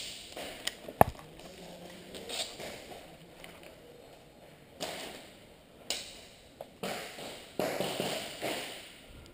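Footsteps and gear rustling on a concrete floor, a few short scuffs spaced about a second apart in the second half. A sharp click about a second in is the loudest sound.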